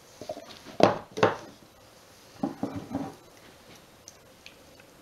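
A spatula knocking against plastic and glass measuring jugs while soap batter is scraped out: two sharp knocks about a second in, then a quicker run of about four knocks between two and a half and three seconds.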